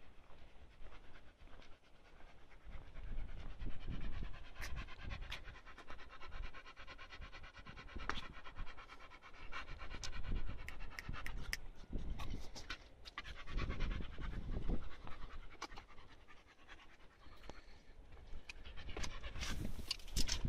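Dog panting.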